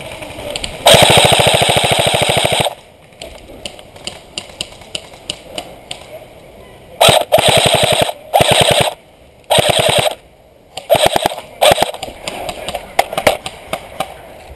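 Airsoft electric gun firing on full auto: one long rapid burst of almost two seconds about a second in, then six shorter bursts in quick succession from about seven seconds on. Fainter single shots crack in between.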